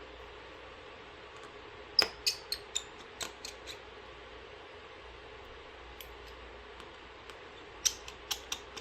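Light, sharp clicks of tiny screws and a tri-point screwdriver in two quick clusters, about two seconds in and again near the end. The screws are being taken out of an iPhone 11 Pro's display-connector cover and set down on a magnet.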